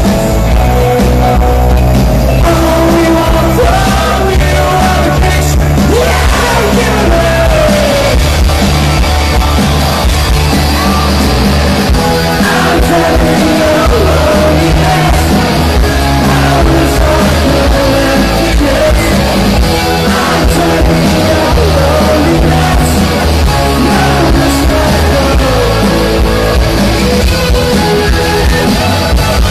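Live rock band with electric guitar playing a song at full volume, heard from among the audience in a concert hall.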